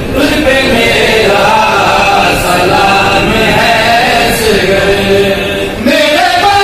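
Men's voices chanting together, loud and continuous, with pitch that wavers and glides. About six seconds in a lead voice rises in pitch over the others.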